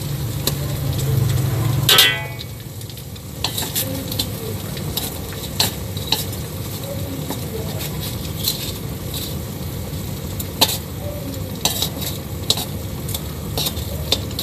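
Small fish sizzling in hot oil in an aluminium wok, with repeated clicks and taps as bamboo chopsticks and a metal spatula nudge and turn the fish against the pan. A louder scrape with a ringing tone comes about two seconds in.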